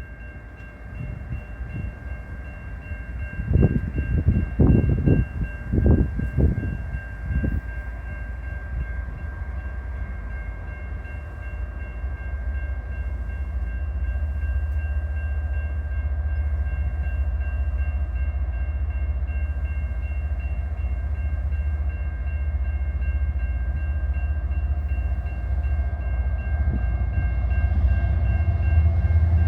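Grade-crossing bell ringing steadily while a CN freight train led by a GE ES44AC diesel locomotive approaches, its deep engine rumble building and growing louder toward the end. A few low buffeting bursts come about four to seven seconds in.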